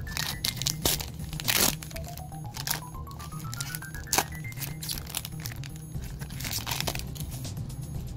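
Foil booster-pack wrapper crinkling and tearing open in sharp crackles, the loudest about a second and a half in and again about four seconds in, over steady background music.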